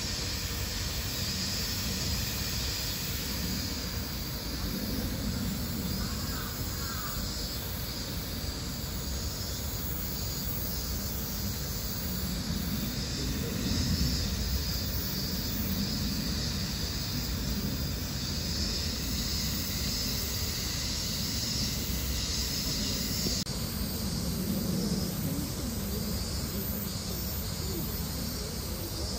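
Steady outdoor background noise: a low rumble under an even high hiss, which shifts slightly and suddenly about 23 seconds in.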